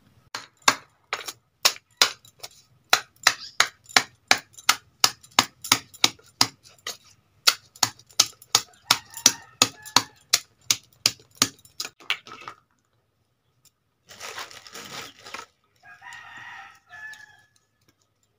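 Metal pestle pounding roasted crab with garlic and chilli in a steel plate for a crab chutney: sharp, even strikes at about three a second that stop about twelve seconds in. After a short burst of noise, a rooster crows near the end.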